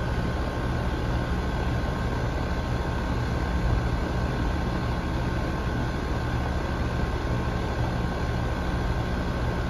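Rheem heat pump outdoor unit running in cooling mode: a steady hum from the compressor and condenser fan, with a faint steady whine above it.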